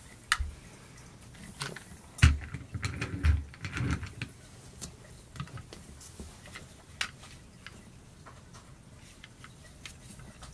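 Plastic Dalek and Mechanoid action figures being handled and set down on a tabletop: scattered clicks and knocks with a few dull thumps, the loudest about two seconds in, then sparser small clicks as a figure's parts are worked.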